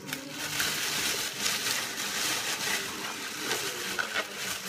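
Crinkling and rustling of a plastic grocery bag being handled, along with the handling of a plastic milk jug as its cap is twisted off.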